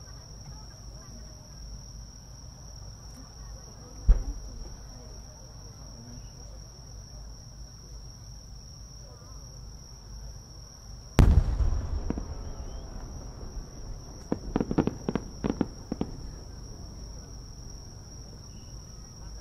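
A two-shaku (about 60 cm) firework shell: a sharp thump about four seconds in as it is fired from the mortar, then some seven seconds later the loud boom of its burst, dying away slowly, followed by a scatter of short cracks. Insects trill steadily throughout.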